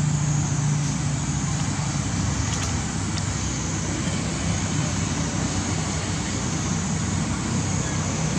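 Steady outdoor background noise: a low rumble under a constant high-pitched hiss, with no clear calls or knocks.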